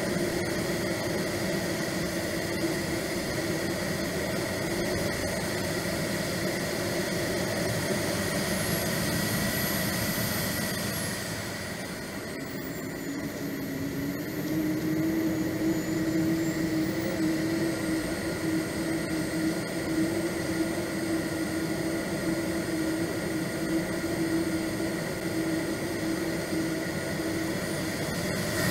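Swiwin 170B model jet turbine heard from on board the jet in flight: a steady high whine over rushing air. About eleven seconds in the turbine spools down, the whine falling and the sound easing, then it spools back up a few seconds later.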